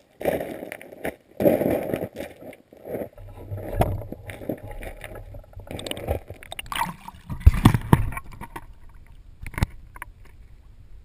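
Shallow creek water sloshing and gurgling around a camera held in the water, muffled and irregular, with a few sharp knocks and thumps in the second half.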